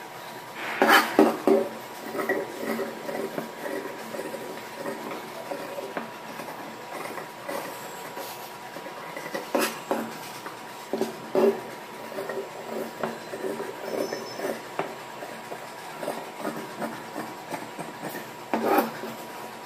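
Fabric scissors cutting through blouse cloth on a wooden table, with snips and the rustle and slide of the cloth as the pieces are smoothed and moved. A few sharper clicks stand out, about a second in and near the end.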